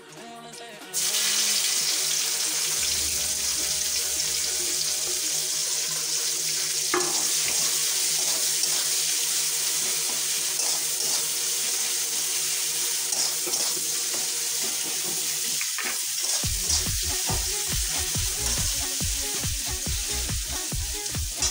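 Chopped onions hitting hot oil in a kadai: a loud, steady sizzle starts suddenly about a second in and keeps going as a spatula stirs them.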